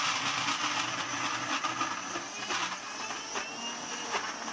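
Electric mixer grinder running steadily, its blades whirring through boiled chickpeas and water as they are ground for hummus.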